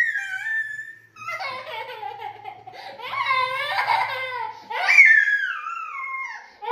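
A young child's high-pitched wordless cries, long calls that slide down in pitch, one starting about a second in and another near five seconds.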